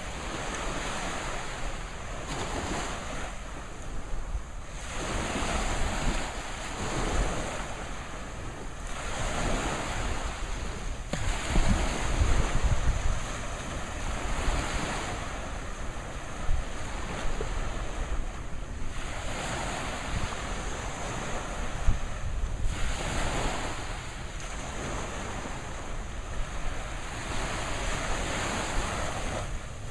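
Small surf waves breaking and washing up the sand, swelling every few seconds, with wind buffeting the microphone.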